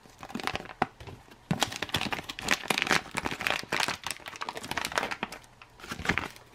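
Foil-laminate outer pouch of a 1993 South Korean freeze-dried field ration crinkling and crackling as it is handled after being cut open, a dense run of crinkles loudest in the middle that dies away about six seconds in.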